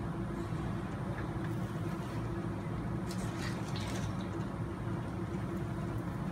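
Steady low room hum, with a few faint light clicks and ticks of small parts being handled on a workbench.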